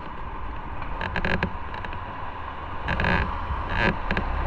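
Motorcycle engine running on the move, with a steady rumble that grows stronger near the end, and short bursts of hiss from wind.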